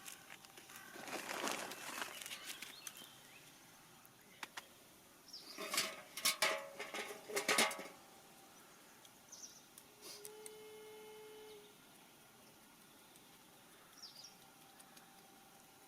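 Bursts of rustling and scraping from compost soil being handled, with a few sharp clicks. About ten seconds in, a steady tone sounds for a second and a half.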